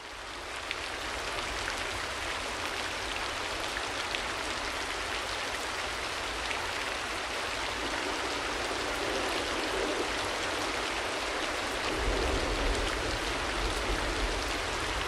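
Rain falling steadily, fading in at the start, with a low rumble joining about twelve seconds in.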